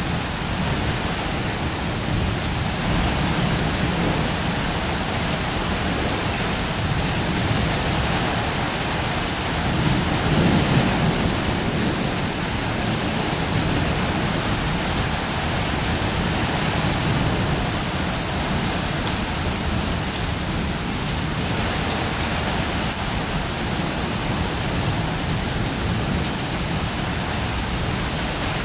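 Steady heavy rain falling in a thunderstorm, with a low roll of thunder swelling about ten seconds in.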